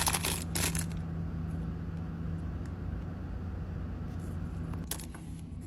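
Steady low hum with a faint noise bed, broken by a few small clicks about half a second in and again near the end.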